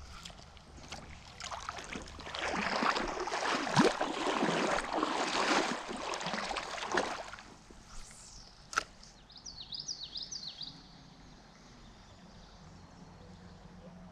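Irregular sloshing and splashing of someone wading through shallow creek water for several seconds. Then a single sharp click, followed by a brief high warbling chirp of a small bird.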